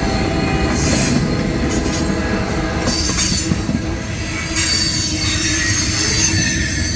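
Freight train passing at speed close by. Its steel wheels rumble steadily on the rails under a thin, high, steady squeal, and a low pitched hum shows for the first few seconds.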